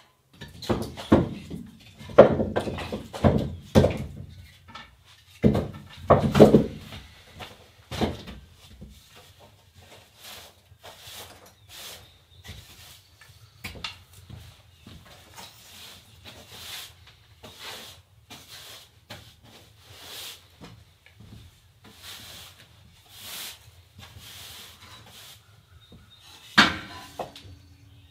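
A push broom sweeping a wooden plank floor in repeated swishing strokes, about one a second. Heavier knocks and scrapes sound in the first eight seconds, and a sharp knock with a brief ring comes near the end.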